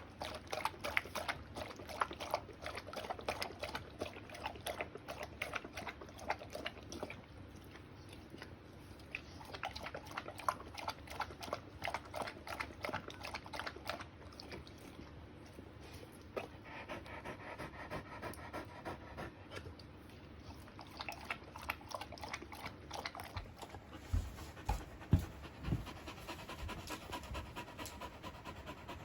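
English Setter panting fast and steadily, with a few low thumps near the end.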